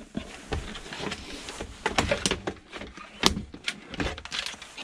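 Plastic housing of a Vax vacuum cleaner being handled and pulled apart during dismantling: irregular knocks, clicks and scrapes of hard plastic, the sharpest knocks about two and three seconds in.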